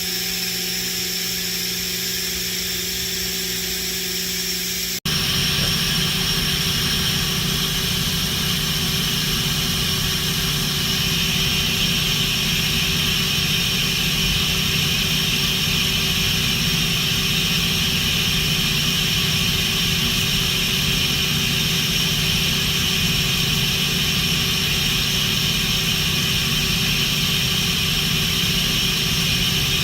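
Mori Seiki NT4300 CNC turning center running: a steady machine hum with a high whine. The sound drops out for an instant about five seconds in and comes back louder.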